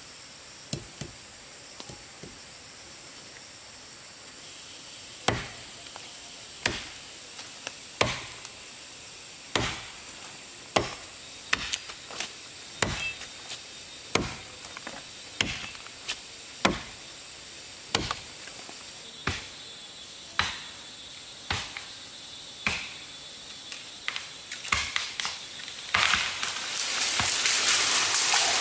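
Steady chopping strokes, one sharp strike about every second and a quarter, starting about five seconds in and bunching into a quick flurry near the end. A loud rushing hiss then sets in and drowns them out.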